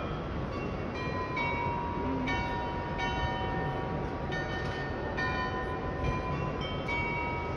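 The bells of the Munich Rathaus-Glockenspiel playing a slow tune: a new bell note struck every second or so, each ringing on and overlapping the next, over steady background noise.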